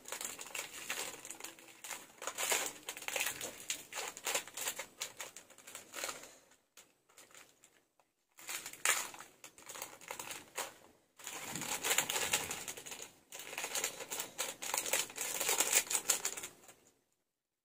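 Crinkling and crackling of a small plastic sachet being handled and opened, most likely the packet of fried shallots (bawang goreng) for the instant noodles. It comes in runs of quick clicks and rustles with a couple of short pauses.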